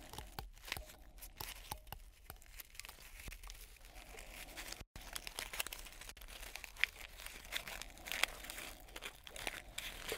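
Amplified crinkling and crackling with many sharp ticks, broken by a sudden short gap about five seconds in. After the gap it is the crinkling of a worn foil-and-paper-wrapped pack of gum, handled as an instrument.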